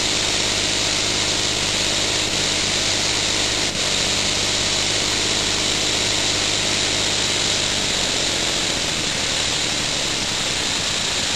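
Small home-machined elbow engine running fast at full throttle on compressed air. It makes a steady hiss of exhausting air over a continuous mechanical whir from its pistons and flywheel.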